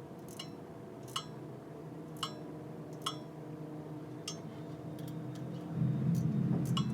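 Light, sharp metallic ticks with a brief ring, roughly one a second at uneven intervals, over a steady low hum that gets louder near the end.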